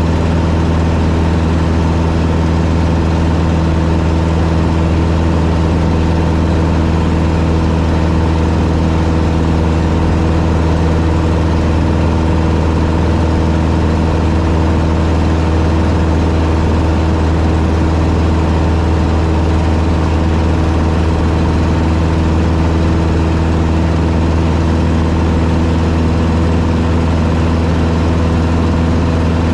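Taylorcraft BC12D-85 light plane's four-cylinder Continental C85 engine and propeller running steadily at cruise, heard inside the cabin as an unchanging low drone over a rush of air.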